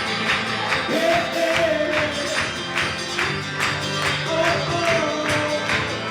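Contemporary worship song played by a band, in a passage without lyrics: a steady beat of bright percussion hits under a held melody line.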